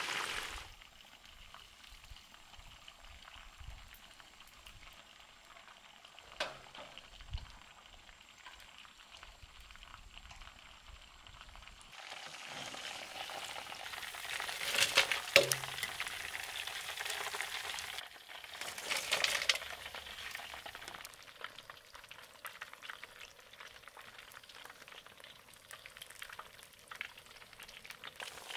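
Chicken drumsticks deep-frying in a wide pan of hot oil: a bubbling, sizzling hiss that is faint at first and grows louder about halfway through. A few sharp knocks sound over it.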